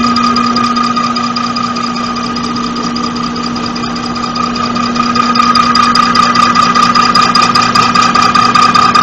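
Diesel fuel injection pump test bench running, its drive spinning the injection pump on a fuel-delivery calibration run that pumps fuel into the graduated measuring glasses. It makes a steady hum and whine that gets louder about five seconds in.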